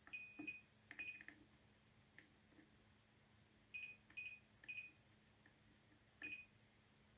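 A multimeter's continuity beeper gives about six short, high-pitched beeps at irregular intervals as the probe is touched to capacitor pads on a monitor's T-Con board. Each beep marks continuity to ground while the capacitors are checked for a short circuit.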